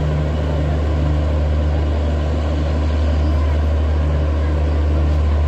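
Diesel generator of an Indian Railways end-on-generation (EOG) power car running steadily: a deep constant hum with a slow, regular throb laid over it.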